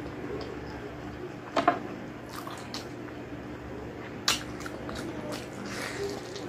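Close-miked wet chewing and lip-smacking of a person eating gelatinous balbacua (stewed beef skin and tendon) with her fingers. Several sharp wet smacks, the loudest about a second and a half in and again past four seconds, over a steady faint hum.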